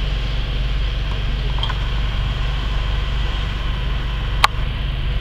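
Steady low rumble of a heavy engine running, with hoses spraying on a bus fire. A single sharp click about four and a half seconds in.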